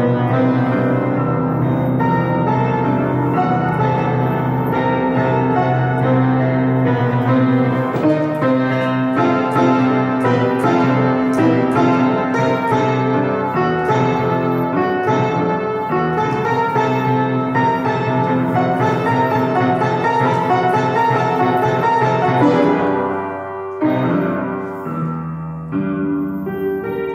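Instrumental piano music, many notes over held low tones; it thins out and gets softer about twenty-three seconds in.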